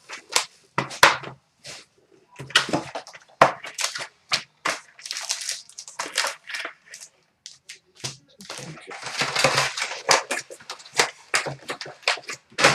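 A sealed box of 2011 Totally Certified Football trading cards being opened: its wrapping and the card packs are torn and crinkled in an uneven run of sharp rips and crackles.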